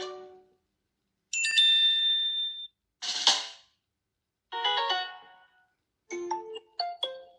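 Samsung Galaxy S7 edge alert tones played one after another, each about a second long with silence between: the end of one, then a chime with held notes, a brief swish, a cluster of bell-like notes, and a quick run of short notes near the end.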